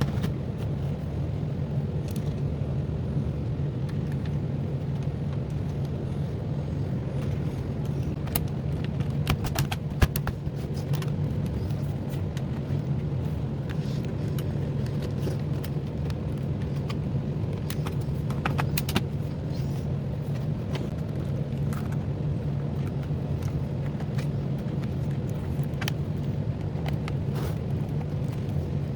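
Scattered small clicks and taps of screws and plastic laptop parts being handled, over a steady low hum.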